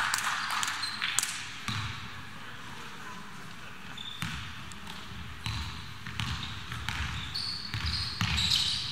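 Basketball being dribbled on a court, a run of low thumps over the hum of a crowd in a hall, with sneakers squeaking on the floor near the end.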